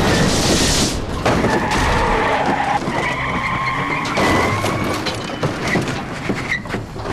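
A car's tyres squealing in several long screeches as it skids, over the noise of the vehicle.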